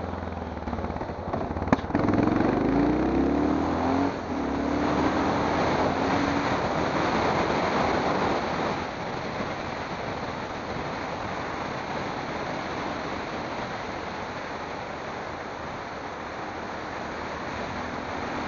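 Wind rushing over the microphone and road noise from a moving vehicle. A sharp click comes just before two seconds in, followed by an engine note that rises and then holds for a few seconds.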